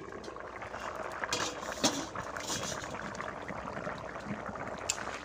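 Knol khol and potato curry boiling hard in an open kadai, a steady dense bubbling, with a few sharp clicks.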